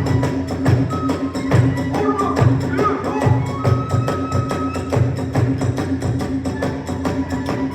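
Kagura hayashi ensemble playing: drums and hand cymbals keep a quick, steady beat, with a bamboo flute line over it.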